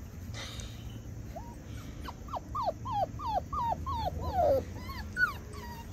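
Six-week-old Australian Labradoodle puppy yipping and whining: a run of about a dozen short yelps, each falling in pitch, roughly three a second, starting about a second and a half in.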